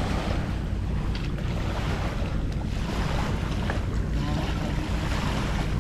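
A boat engine running steadily with a low drone, under wind buffeting the microphone.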